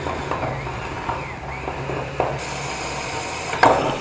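Cordless drill boring through the sheet-steel wall of a welded water tray, its motor pitch rising and falling with the trigger as the bit works into the metal. A few sharp knocks are heard, the loudest near the end.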